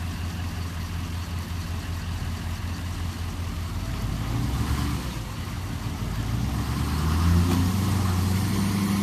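Truck engine running at low speed under load, pulling another vehicle on a tow strap, its sound rising gradually louder through the second half.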